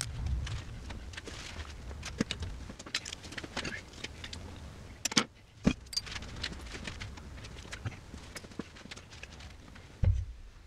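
Hands fitting gear onto a head-mounted camera rig on a workbench: scattered clicks and rattles of metal and plastic parts, two sharper knocks about five seconds in and a thump near the end.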